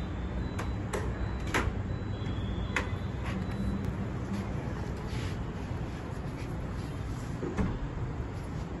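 VEKA uPVC sliding-folding door panels being slid and folded along their track by hand, with several sharp clicks and knocks from the panels and hardware over a steady low rumble.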